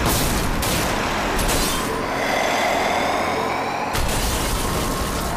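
Sound effects of a small truck hitting a person: a loud crash at the start, a screeching squeal through the middle, and another hard hit about four seconds in.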